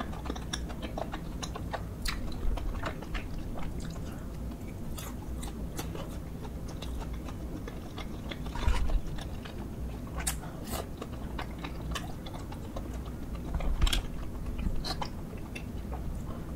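Close-miked chewing of spicy tteokbokki: wet mouth clicks and smacks as the chewy rice cakes are worked, with a few louder bites about halfway and again near the end.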